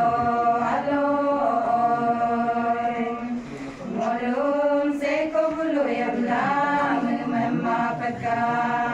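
A group of women singing a chant-like song in unison from lyric sheets, holding long notes that slide slowly up and down, with a brief pause for breath about halfway.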